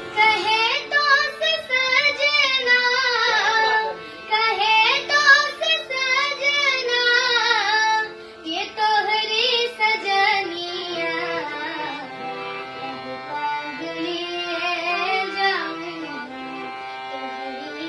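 A young girl singing long, ornamented phrases over a steady, held instrumental drone. The voice is strongest in the first half and grows softer from about halfway through.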